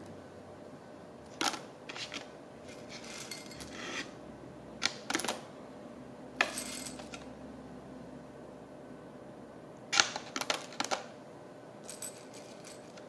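Roasted coffee beans clicking and rattling against a ceramic dosing cup as fingers pick through them and lift a few out, in short scattered clusters with pauses between, busiest about ten seconds in. The beans are being taken out one or two at a time to trim the dose on the scale.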